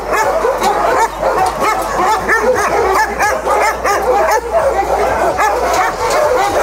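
Many dogs barking and yelping at once in shelter kennels. The short barks overlap into a dense, unbroken chorus.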